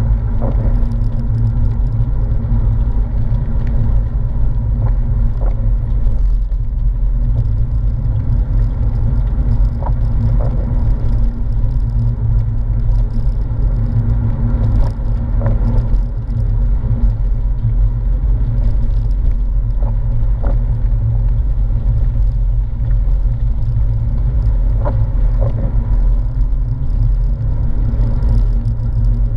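Porsche 997 flat-six car driving at steady speed, heard from inside the cabin: a continuous low rumble of engine and road noise.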